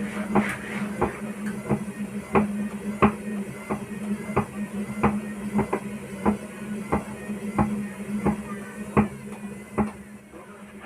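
Hotpoint-Ariston washing machine knocking hard in a steady rhythm, about one and a half knocks a second, over the hum of its running motor: the loud knocking fault that shows during the spin. The knocks stop near the end while the hum goes on.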